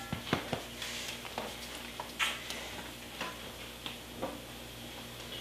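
Scattered light clicks and taps of kitchen utensils and dishes being handled at the counter, the sharpest about two seconds in, over a faint steady hum.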